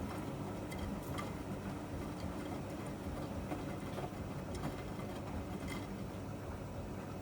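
Miele MedicWash W2585 front-loading washing machine running mid-cycle: a steady motor hum with a few scattered light clicks.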